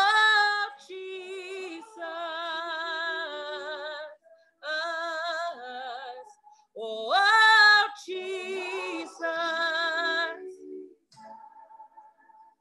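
A woman singing a gospel worship song solo, with long held notes and heavy vibrato, swooping up into a loud phrase at the start and again about seven seconds in, then tapering off quietly near the end, heard through a video call.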